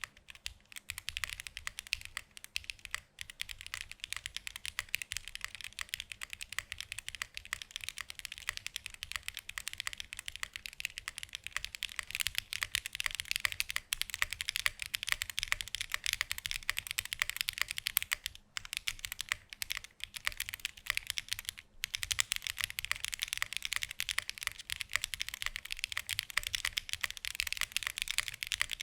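Fast, continuous typing on a 65% custom mechanical keyboard with DM Nezuko switches (UPE top housing, POM bottom housing, LY stem) and GMK keycaps: a dense stream of crisp key clacks with a few brief pauses.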